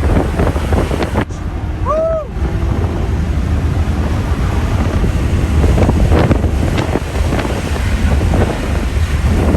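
Wind buffeting the microphone and a steady low road and engine rumble inside a BMW moving at speed. A short rising-then-falling tone is heard about two seconds in.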